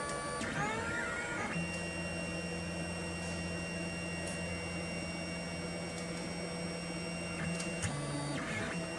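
Anycubic Kossel Plus delta 3D printer's stepper motors whining as the carriages drive the effector during the Z-position measurement. The pitch rises about a second in, holds steady for about six seconds, then shifts near the end.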